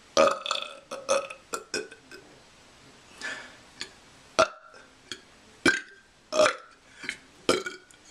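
A person burping over and over: a quick string of short burps in the first two seconds, then about seven single short burps spaced roughly a second apart.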